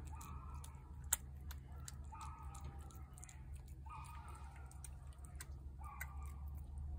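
Cat eating from a plate at close range: a run of small wet chewing and mouth clicks, with one sharp click about a second in. A short repeated call sounds in the background about every two seconds over a steady low hum.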